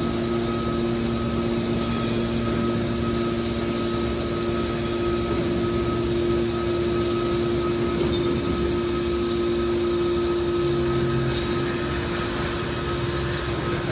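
Metal baler machine running with a steady mechanical hum, a few constant tones held over it.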